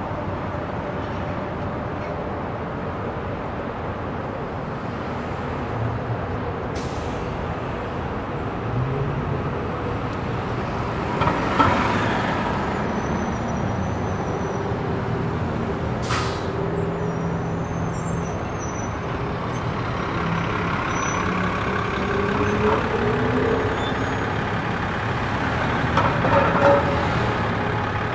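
City street traffic: a steady wash of passing vehicles, with engine notes rising and falling in pitch as they pull away and slow. There is a louder swell of noise about eleven seconds in and again near the end, and a couple of sharp clicks.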